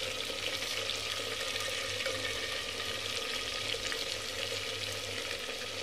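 Fish pieces frying in hot oil in a clay pot: a steady sizzle with fine crackling, over a faint low steady hum.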